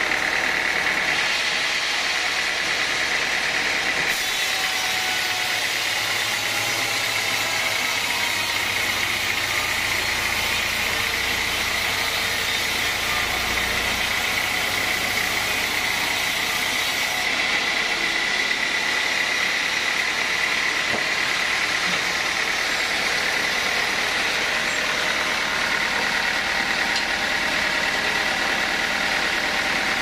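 Sawmill band saw running steadily with a high whine; for a stretch in the middle the sound grows brighter and hissier as the blade cuts through a teak log.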